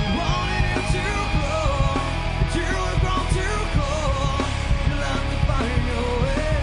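Rock music playing: a full band with a steady beat.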